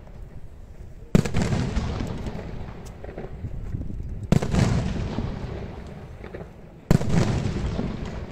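Fireworks bursting: three sharp bangs, about a second, four seconds and seven seconds in, each dying away over two to three seconds of echo.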